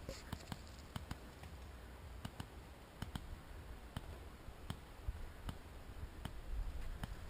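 Faint, irregular pops from paintball markers firing across the field, a sharp click every half second or so, some singly and some close together, over a low rumble.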